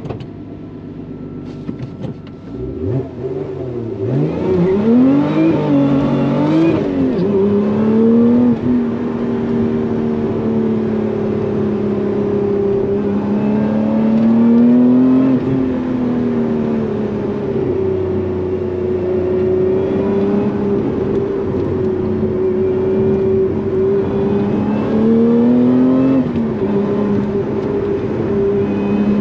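Lotus Emira's supercharged 3.5-litre V6 under way: about three seconds in the revs climb and fall sharply a few times, then the engine pulls at steady, moderate revs with slow rises and falls in pitch.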